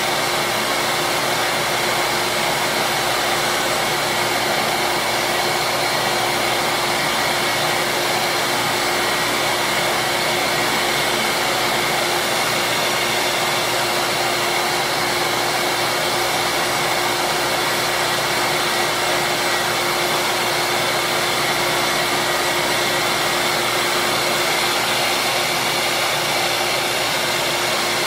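Benchtop disc sander running steadily while small plastic slider pieces are held against the spinning sanding disc, a constant motor hum under the sanding noise.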